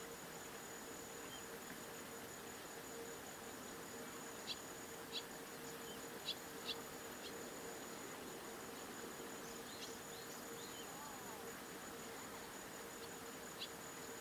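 A steady, high, thin insect-like trill over soft outdoor background noise, with a few short, sharp, high chirps from a small bird, several in quick succession about four to seven seconds in and one more near the end.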